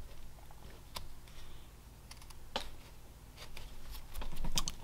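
Whittling knife paring small chips off a basswood figure: a few sharp clicks spread apart as the blade snaps through the wood, with a slightly longer slicing cut near the end.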